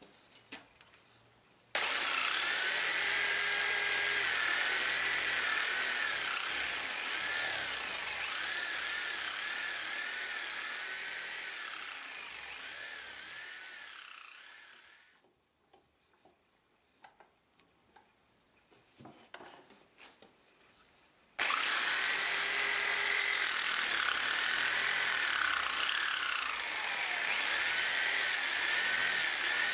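Skil electric jigsaw cutting through a wooden board: it starts about two seconds in, runs down and stops around fifteen seconds, with a few light knocks in the pause, then starts again about twenty-one seconds in and keeps cutting. Its motor whine wavers in pitch as the blade works through the wood.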